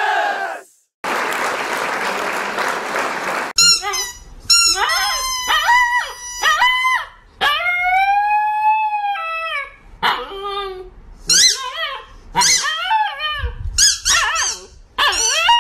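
Husky-type dog howling and yowling in a long string of rising and falling calls, with one long drawn-out howl near the middle. The calls start after a couple of seconds of steady hiss at the beginning.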